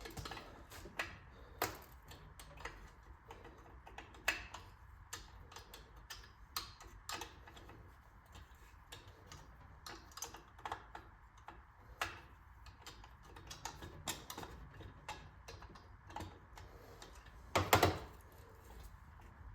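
Irregular small metal clicks and taps of hand tools working on a small engine during teardown, with a louder clatter near the end.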